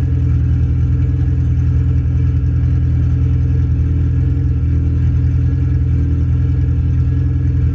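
The engine of an H2B-swapped Honda Civic coupe idling steadily.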